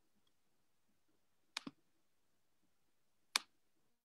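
A few sharp, short clicks over a quiet room: a quick pair about one and a half seconds in and a single click about three and a half seconds in.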